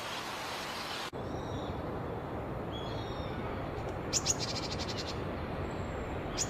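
Steady hiss that cuts off about a second in, then a songbird calling: a few faint thin whistles followed by two short runs of rapid, sharp chattering notes, over a low background rush.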